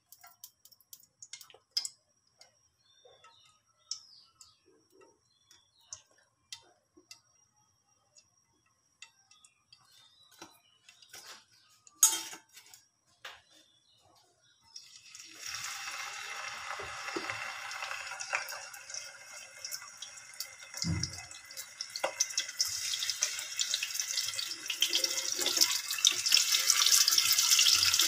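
Pieces of turmeric-coated dhela fish frying in hot oil in a nonstick pan: after a quiet spell with a few small ticks, a sizzle starts suddenly about halfway and grows steadily louder, with one low thump later on.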